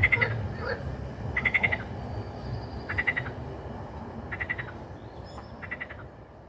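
Frogs croaking: one frog repeats a short, rapidly pulsed call about every second and a half over a lower, continuous background chorus of frogs. The whole chorus fades gradually toward the end.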